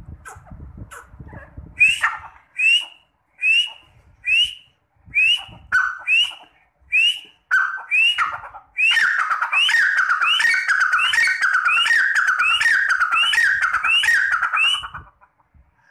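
A partridge (desi teetar) calling. Soft chirps at first give way to a string of loud ringing notes, each sweeping up and falling back, about one a second. From about nine seconds in these run together into a fast continuous call that stops shortly before the end.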